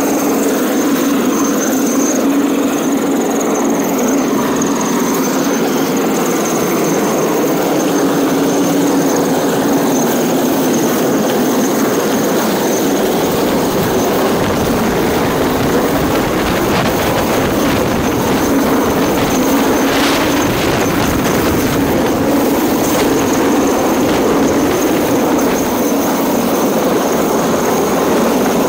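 Chinese Navy helicopter hovering low overhead: a loud, steady rotor and turbine din with a thin high whine. The low rumble grows deeper about halfway through.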